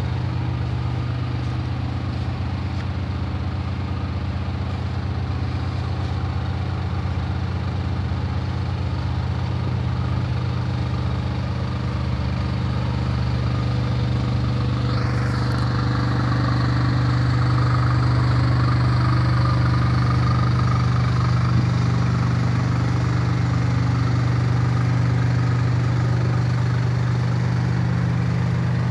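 Diesel-electric road locomotive's engine idling with a steady low hum, a little louder past the middle. A brief high sound falling in pitch cuts through about halfway.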